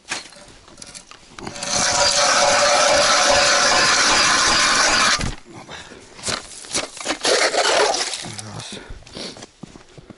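Hand ice auger drilling a hole through river ice: a loud, steady scraping of the blades cutting ice from about a second and a half in for roughly three and a half seconds, then a few shorter scrapes and knocks as the auger is worked in the hole.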